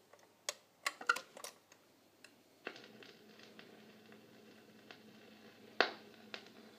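RCA EY-4 45 rpm record changer cycling between records. Its mechanism makes a few scattered mechanical clicks and knocks, and a faint steady low hum comes in about three seconds in.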